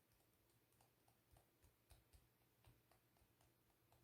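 Near silence: faint light clicks and ticks, a few a second, over a low steady room hum.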